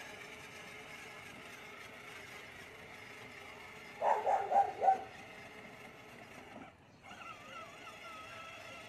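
A puppy yaps in a quick run of about four short, high barks, over a faint steady hum.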